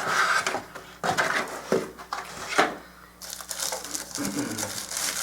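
Cardboard box and paper packaging being handled, rustling and crinkling, with a few sharper knocks and scrapes, the loudest about two and a half seconds in.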